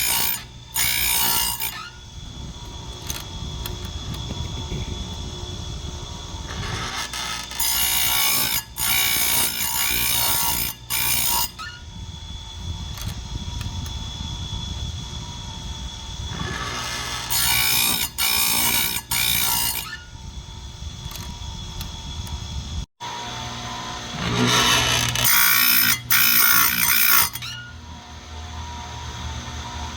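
Chainsaw chain grinder running, its abrasive wheel brought down onto the chain's cutter teeth in repeated bursts of a harsh, high grinding a second or a few seconds long, with the motor humming steadily between passes.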